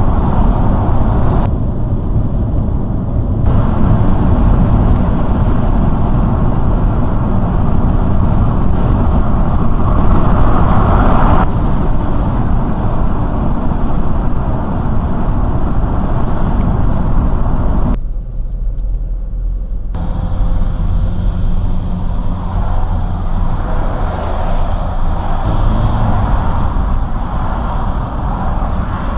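Steady road noise of a car cruising on a motorway, heard from inside the cabin: low tyre rumble and engine drone with wind hiss above it. The hiss cuts out briefly twice.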